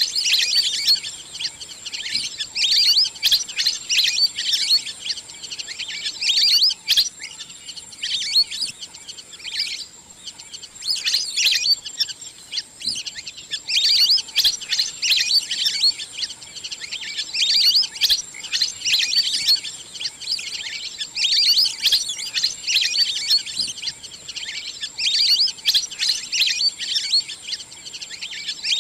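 Recorded wild duck calls played as a hunting lure: rapid, high-pitched chirping whistles in bursts that repeat every second or two with short gaps. A thin steady high tone runs underneath.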